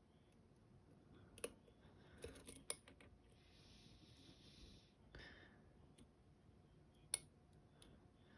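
Faint clicks and taps of lock picks and a tension tool being worked in a Caveo TS007 euro cylinder lock. There are a few sharp clicks, and a soft hiss lasts about two seconds in the middle.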